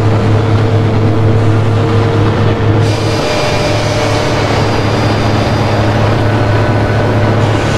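A loud, steady drone of dense rumbling noise over a low hum, like the rumble of a train or heavy vehicle. About three seconds in, a brighter hiss joins it.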